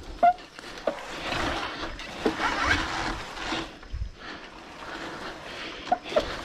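Honda CB motorcycle sliding down a steep dirt slope with both wheels braked and locked: the tyres drag and scrape over the soil in uneven stretches, with a few short squeaks, as the brakes fail to hold the bike on the incline.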